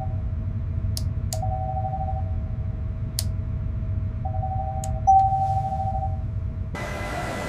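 Sonar-style electronic tones over a low steady rumble: one tone holds while a slightly higher tone switches on and off, with a few sharp clicks. Near the end it cuts to a rushing noise like wind and sea.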